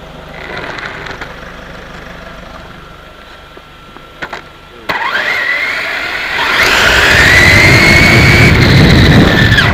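XTM XT2E electric RC buggy pulling away on asphalt. About five seconds in, its motor whine comes in suddenly and rises in pitch, then holds high and loud over the rumble of the tyres on the road.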